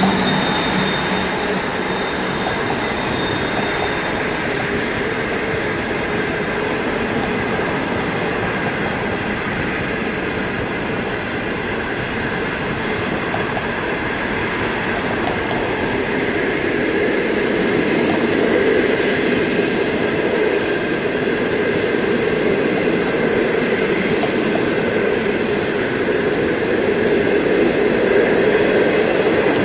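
Passenger train passing close at steady speed: an HXD2B electric locomotive, with a hum in the first few seconds, then a long rake of green 25G coaches. Their wheels run over the rails in continuous noise that grows a little louder in the second half.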